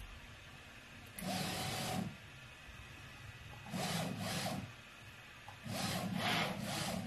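The CoreXY printer's NEMA 17 stepper motors drive the X carriage along its steel rods on GT2 timing belts. There are three short, quiet runs of about a second each, with a steady whirring tone, and a second or two of pause between them.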